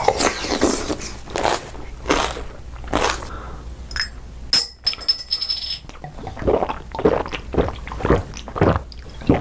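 Close-up eating sounds: repeated crunchy biting and chewing, a bite or chew about every half to three-quarters of a second. A short high ringing tone sounds about halfway through.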